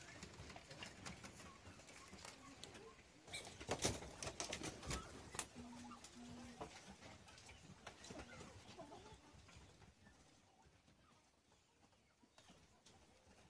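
Faint, soft calls of young green pheasants in a netted pen, with a few sharp knocks and rustles about four to five seconds in.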